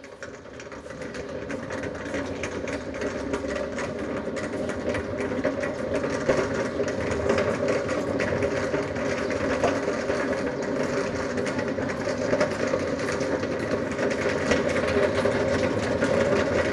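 Industrial machinery of a French fries production line running: a steady hum of electric motors and fans with a dense rattling, growing louder over the first two seconds and then holding steady.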